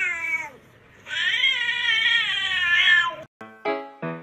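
A cat giving two long, drawn-out meows: the first falls in pitch and dies away about half a second in, and the second lasts about two seconds. About three seconds in it cuts to music with short, evenly spaced notes, about four a second.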